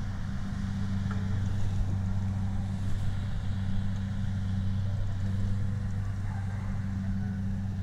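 Kubota DC70 combine harvester's diesel engine running steadily while cutting rice, a low, even drone.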